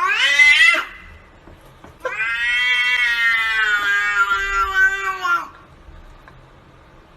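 A cat meowing: a short call rising in pitch at the start, then one long drawn-out yowl of about three and a half seconds that sags slightly at the end.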